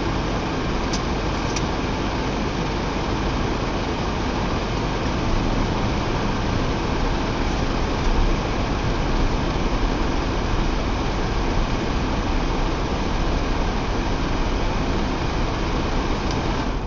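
Mitsubishi Triton pickup running with a steady, dense mechanical noise, recorded as an abnormal noise the owner wants to show. Two faint ticks come about a second in.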